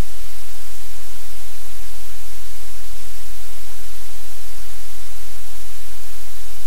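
Loud, steady static hiss over a low hum, unchanging throughout: electronic noise on the live camera's audio feed, with no distinct sounds of the puppies.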